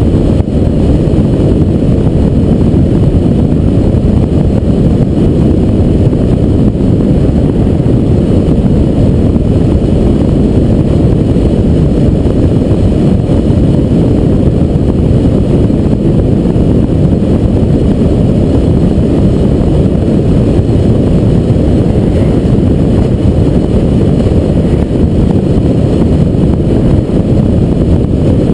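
Steady low rumble of road and wind noise from a car driving along a highway, with no music.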